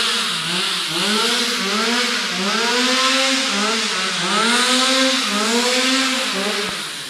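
Two-stroke chainsaw engine revved over and over, its pitch rising and falling about twice a second. It cuts out near the end.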